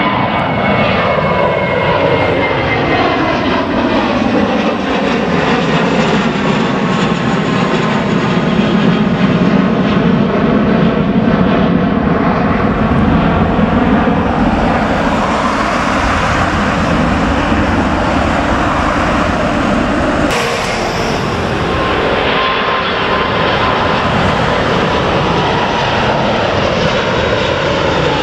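Airbus A321 twin-jet departing overhead at climb power, its engine noise sweeping in pitch as it passes. About twenty seconds in, the sound cuts abruptly to an Airbus A380's four jet engines climbing out, with a steady whine over the rumble.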